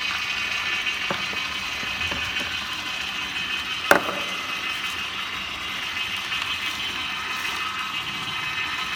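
Vertical slow juicer's motor and auger running steadily with a high gear whine as it presses celery and carrot, with one sharp snap about four seconds in.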